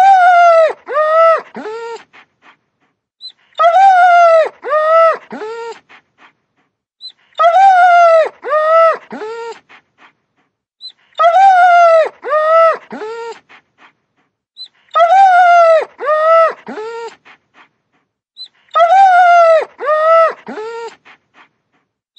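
Dog whining: a high, drawn-out whimper followed by two shorter ones that bend down in pitch, the last lowest. The same group of three repeats identically about every 3.7 seconds, six times, as a looped sound effect.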